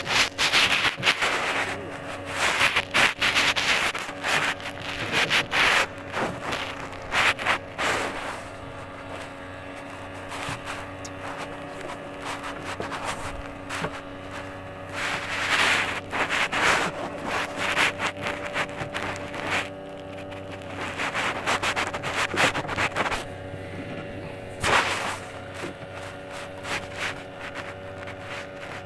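Repeated bursts of rubbing and rustling noise close to the microphone, over a steady engine hum with several pitches.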